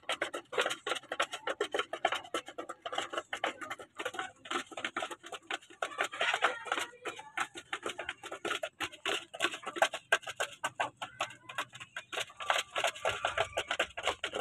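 Basilan native chickens pecking feed from a trough: rapid, irregular tapping and clicking of beaks on the trough, several pecks a second.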